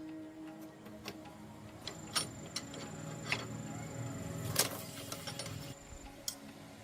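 Scattered sharp clicks and knocks, about half a dozen spread irregularly, the loudest a little past the middle, over a faint steady hum.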